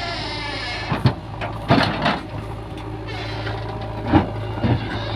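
Diesel engines of a JCB 3DX backhoe loader and a Trakstar tractor running steadily, with several sharp knocks and clanks about a second in, near two seconds and around four seconds.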